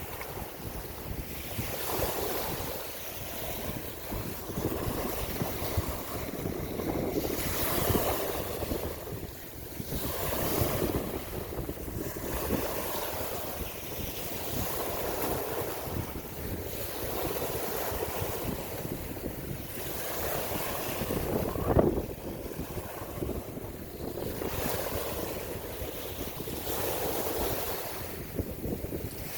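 Waves washing in, swelling and fading every few seconds, with wind buffeting the microphone. A brief thump about two-thirds of the way through.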